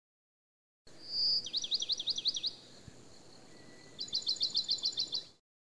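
A songbird singing: a short high whistle, then a quick run of about seven down-slurred notes, and after a pause a faster run of about ten notes near the end.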